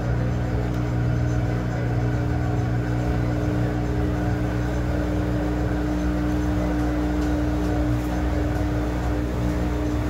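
Top-loading washing machine humming steadily while its drum stands still: a low drone with a higher tone that grows stronger about four seconds in.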